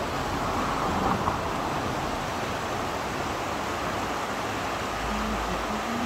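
Mountain stream rushing over rocks and small rapids, a steady even rush of water.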